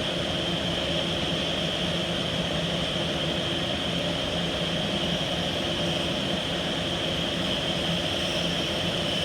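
Granite CNC machine's spindle spinning a diamond tool, running steadily with a high whine over a low hum.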